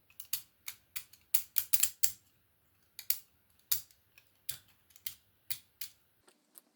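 A 3D-printed plastic rotary switch being turned by hand, its stepping wheel snapping into its detent positions. About twenty sharp plastic clicks, in uneven runs.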